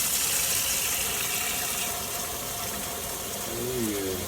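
Tap water running steadily into a humidifier's water tank as it is filled, the rush easing a little about halfway through.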